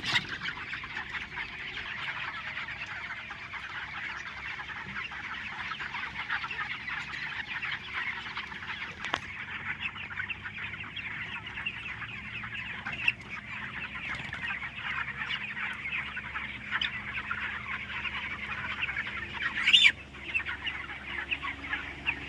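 A flock of chickens calling together, a dense continuous chatter of clucks and cheeps, with one louder sharp cry near the end.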